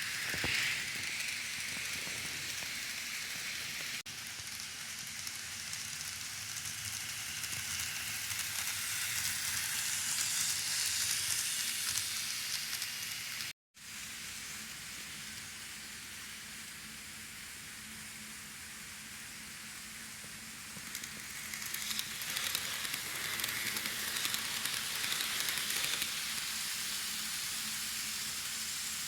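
N gauge model train running on the layout track: a steady hissy rattle of small wheels on the rails with fine ticking, and a faint low motor hum in the second half. The sound cuts out for a moment about halfway and gets louder again near the end.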